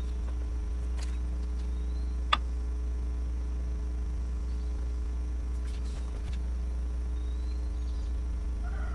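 A steady low hum, with a single sharp click a little over two seconds in and a few faint taps.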